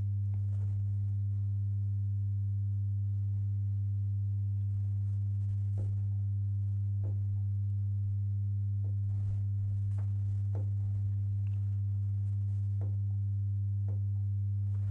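Steady low electrical hum with a few weaker overtones above it, unchanging throughout, with several faint clicks over it.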